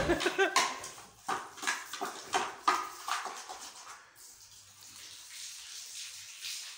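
Hands handling meat and plastic bags at a steel cooking pot: a quick run of short knocks, scrapes and rustles over the first few seconds, then only faint room hiss.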